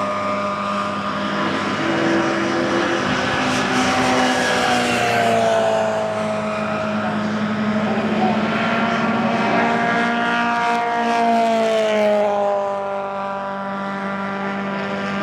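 Historic touring race cars running at high revs along the straight, their engine notes sliding down in pitch as they pass, twice in succession.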